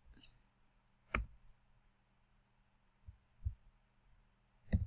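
Two sharp computer mouse clicks, one about a second in and one near the end, with a couple of faint low bumps between them, over a faint steady hum.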